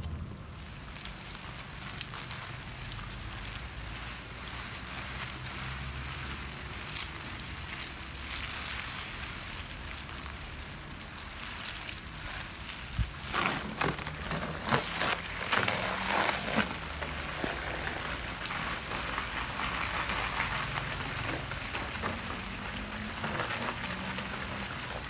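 A jet of water from a garden hose splashing onto leaves and soil: a steady hiss of falling water, with more splashing from about halfway through.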